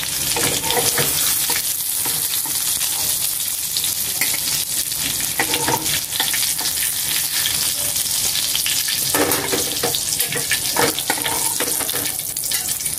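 Eggplant omelettes sizzling and crackling in hot oil in a wok. A metal spatula scrapes and knocks against the pan a few times as the pieces are lifted out.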